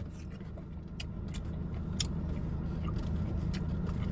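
Steady low rumble of a car idling, heard from inside the cabin and growing slightly louder, with a few faint small clicks.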